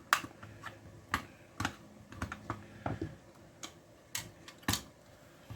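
Plastic housing of a Stanley FatMax stud finder clicking and tapping as it is pried apart and its loose parts handled: a dozen or so irregular sharp clicks, the loudest about a second in and near the end.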